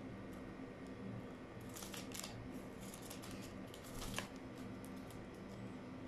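Faint paper rustling and a few soft clicks from a parakeet stepping about on a stack of papers and a calculator, over a low steady hum.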